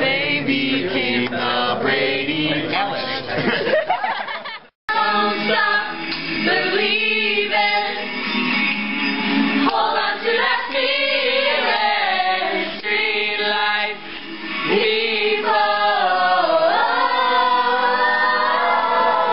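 Voices singing together with long held notes, after a few seconds of people talking at the start. The sound cuts out for a split second about five seconds in.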